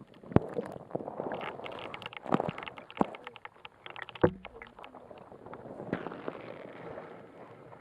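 Kayak paddling: water splashing and dripping off the paddle blades, with several sharp knocks spaced a second or two apart.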